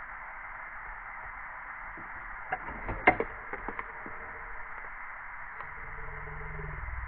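A cluster of sharp metallic clicks and taps from wire connectors being handled at an RV air conditioner's run capacitor, over a steady hiss. A low hum starts near the end and grows louder.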